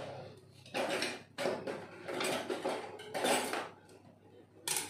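Cutlery and kitchen utensils clattering in several short, irregular bursts as a kitchen drawer's cutlery tray is rummaged through.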